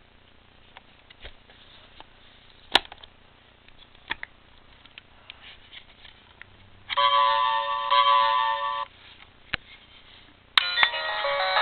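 Plastic clicks and handling of a Sailor Moon Prism Locket toy as its lid is opened. About halfway through, its small speaker plays an electronic chime of a few steady notes for about two seconds. After another click, pressing the gem button starts an electronic melody near the end.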